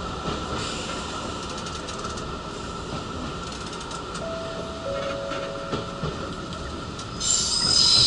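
Nishitetsu Kaizuka Line train running, heard from inside the passenger car: a steady rumble of wheels and running gear with a constant hum. A short two-note tone sounds in the middle, and about seven seconds in a high wheel squeal sets in and grows louder.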